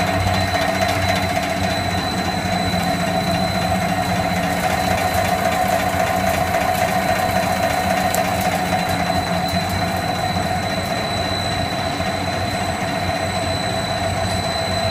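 Pellet snack production line machinery running: a steady mechanical hum with a constant high whine.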